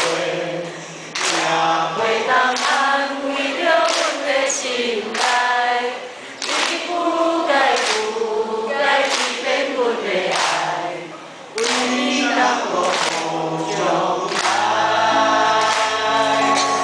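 Live song: a man singing into a microphone to his own acoustic guitar, the voice carrying the melody.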